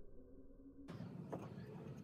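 Faint room tone with a low hum, which changes abruptly a little under a second in, then a few soft, faint ticks.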